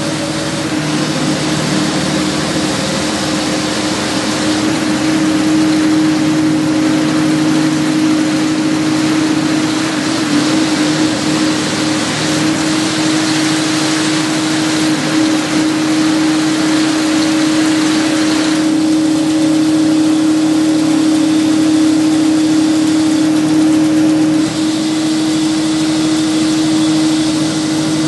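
Aquatic weed harvester's engine running steadily with a constant hum as it drives the mesh conveyor carrying water hyacinth.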